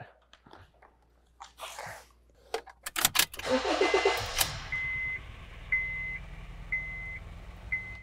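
2013 Honda Fit's 1.5-litre four-cylinder engine cranking and catching about three seconds in, then idling steadily while running on only three cylinders: the number 3 fuel injector is not firing, a dead misfire. A car warning chime beeps about once a second over the idle.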